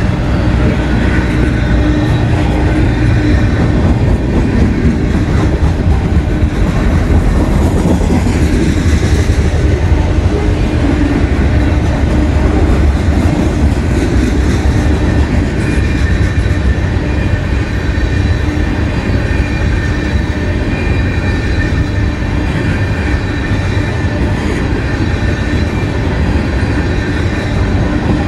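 Freight cars of a long CSX mixed freight train (tank cars, boxcars and covered hoppers) rolling past close by: a loud, steady rumble of steel wheels on rail. A thin, high wheel squeal comes in about halfway through.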